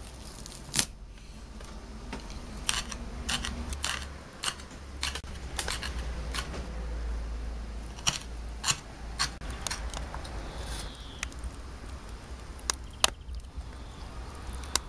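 A kitchen knife chopping wild garlic (ramsons) leaves on a wooden cutting board: sharp, uneven knocks of the blade on the board, about one or two a second, with louder strikes about a second in and near the end.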